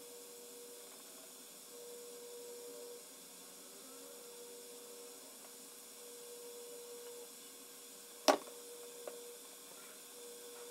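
Faint steady electrical hum with one thin steady tone, broken by a single sharp knock a little over eight seconds in and a faint click about a second later.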